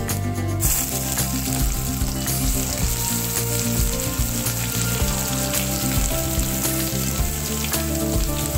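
Ground masala paste frying in hot oil in a non-stick kadai: a loud sizzle starts about half a second in as the paste hits the oil with cumin seeds and bay leaves, then runs on steadily while a spatula stirs it.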